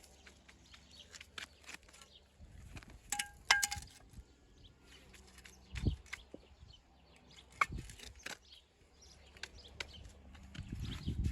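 Scattered light clicks and knocks, with a brief ringing metallic clink about three seconds in.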